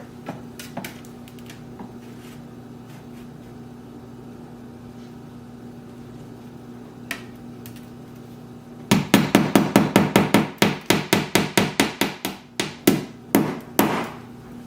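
A rapid series of sharp hammer-like strikes, about four or five a second, starting about nine seconds in and tapering into a few spaced knocks. Under them runs a steady low hum with faint scattered ticks.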